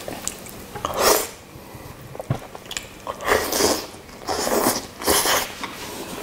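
A man slurping and chewing instant noodles in black-bean sauce off chopsticks: four noisy slurps, one about a second in and three close together in the second half, with wet chewing between, close to the microphone.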